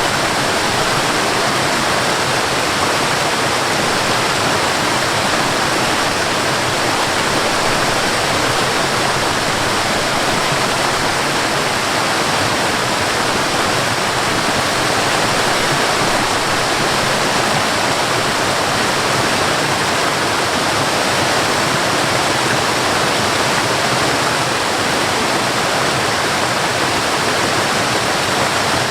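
Waterfall and river water running steadily, a constant even rush with no change.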